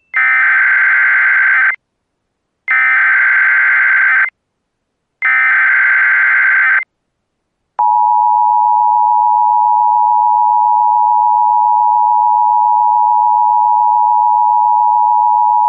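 Emergency Alert System SAME header: three bursts of rapid digital data tones, each about a second and a half long with a second's gap between, that open an EAS alert. After a click, the two-tone EAS attention signal sounds, a steady pair of close tones held for about eight seconds.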